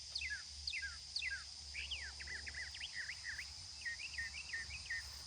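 Songbirds singing: a run of repeated down-slurred whistled notes, then a quicker jumble of rising and falling notes, over a steady high-pitched insect trill.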